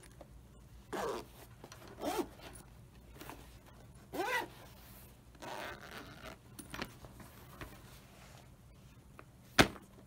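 Newly replaced zipper on a leather drumstick bag being pulled open and shut in about four short strokes, tried out after the repair. One sharp click near the end is the loudest sound.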